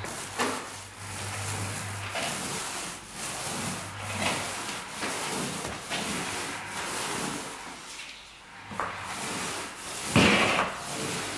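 Paint roller on an extension pole rolling thick primer onto a plaster ceiling and wall: a repeated rubbing swish with each stroke, about one a second, with a brief lull near the end.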